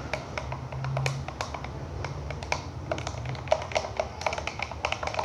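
Slime being worked by hand, giving irregular sticky clicks and pops, over a low steady hum.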